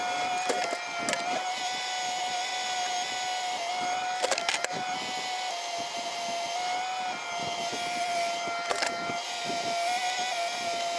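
Cat 304E mini excavator running under load with a steady whine, and a few sharp knocks, the loudest cluster about four seconds in as a bucket of mud is dumped into the wooden-sided dump truck bed.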